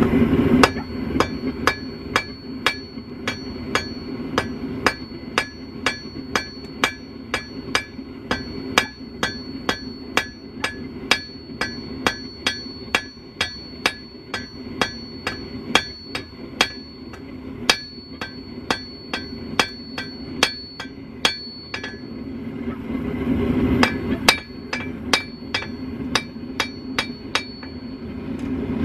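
Hand hammer striking hot steel on an anvil, about two to three blows a second, each with a high ring; the blows stop for a couple of seconds about 22 seconds in, then start again. Under the blows runs the steady rush of a propane forge burner.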